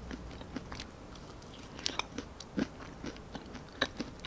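A person chewing a mouthful of ice cream studded with chocolate-coated peanut bits, close to the microphone: scattered small crunches and mouth clicks, a few sharper ones in the second half.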